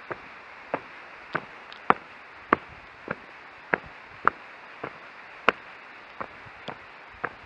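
Footsteps on a stony dirt forest path: sharp, evenly paced steps at walking speed, a little under two a second, over a steady hiss.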